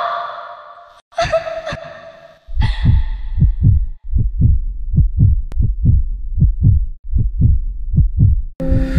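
A woman's sobbing wail trails off, and a second sob follows about a second in. Then a heartbeat sound effect takes over: a steady run of low thumps, about three a second, cut off near the end as music with singing comes in.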